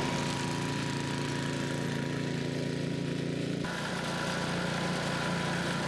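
BlueBird power rake's small gas engine running steadily at an even speed, driving its high-speed impeller reel across the turf. The sound changes abruptly about three and a half seconds in.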